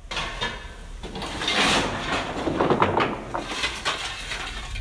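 Coal being shovelled on a steam locomotive's footplate: a steel shovel scraping through coal and clanking on the metal floor, with a run of sharp knocks toward the end.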